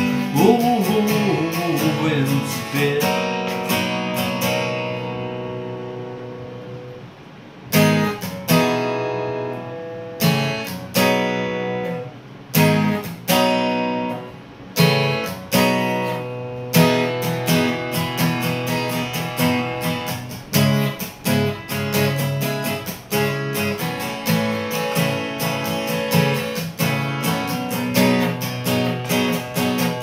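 Steel-string acoustic guitar played solo. A strummed chord is left ringing and fades away for several seconds, then single accented chord strokes come every second or so, settling into steady strumming.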